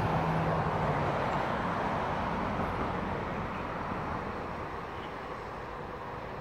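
A passing vehicle: a steady rushing noise that fades gradually over several seconds.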